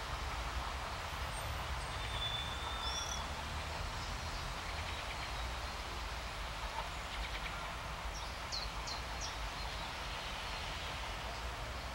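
Faint, steady rumble of the 630M diesel rail bus running away into the distance under a steady outdoor hiss. A bird whistles about two seconds in and chirps three times around nine seconds.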